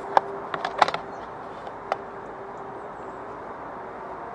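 Metal Trangia camping pots, pan and lids knocking and clinking lightly as they are handled in a plastic storage box: a handful of sharp clinks in the first two seconds, then only a faint steady hum.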